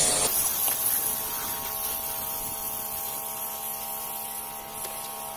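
Electric pressure washer running with a steady motor hum while it sprays detergent foam from its attached soap bottle. A loud spray hiss cuts off just after the start, leaving the hum and a softer spray hiss that slowly fade.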